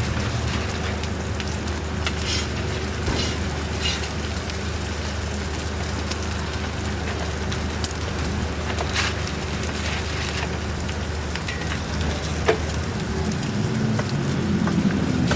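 Ramly burger patties sizzling on a hot flat griddle, a steady crackling hiss, with a low steady hum beneath and a few sharp ticks, one loud one about twelve seconds in.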